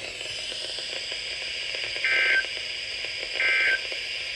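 Two short bursts of Emergency Alert System (SAME) digital data tones, warbling around 2 kHz, a little over a second apart, over a steady radio hiss. These are the end-of-message bursts that close the alert.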